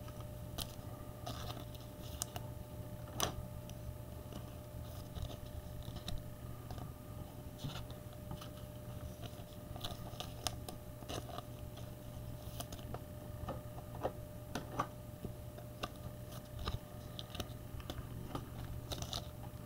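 Trading cards being handled and sorted by hand: faint, scattered clicks and scrapes of card stock, a few sharper ones here and there, over a steady low hum.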